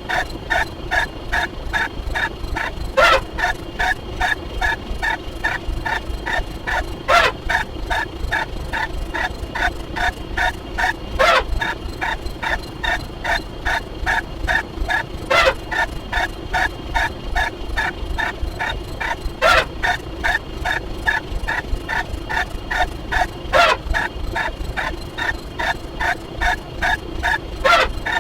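Rapid string of short, repeated sound-effect blips, about five a second, with a louder sweeping sound about every four seconds.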